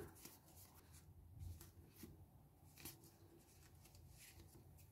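Faint, scattered rustles and soft flicks of Pokémon trading cards being leafed through by hand, the card faces sliding over one another; otherwise close to silence.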